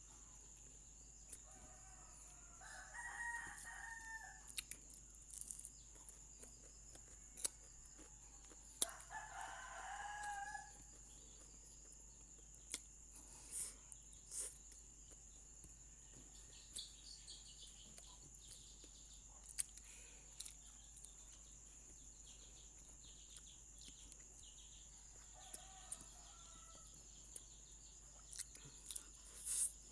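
A rooster crowing three times in the background, the third crow fainter than the first two, with faint sharp clicks scattered between the crows and a steady high whine underneath.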